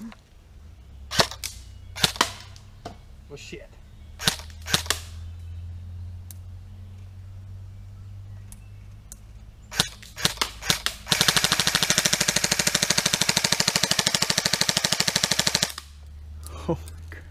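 Lancer Tactical M4-style airsoft rifle firing: a few single shots, a quick string of shots about ten seconds in, then one long full-auto burst of rapid, evenly spaced shots for about four and a half seconds that cuts off suddenly.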